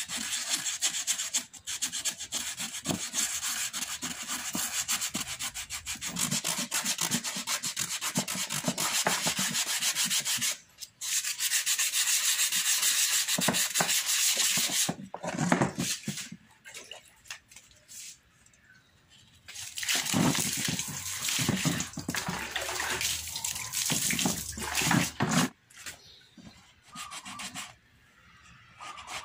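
Sandpaper rubbed by hand in quick back-and-forth strokes over a plastic monoblock chair, stripping its chalky, weathered top layer. The scratching comes in spells with several pauses, the longest a little past the middle.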